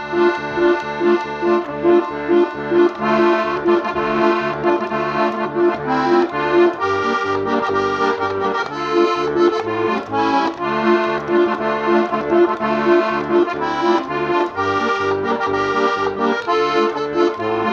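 Accordion playing an instrumental passage: a melody of held, reedy notes over steady, rhythmic bass notes and chords.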